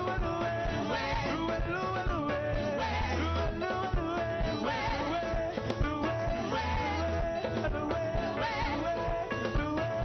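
Church worship music: singing over a band with a steady, repeating bass beat.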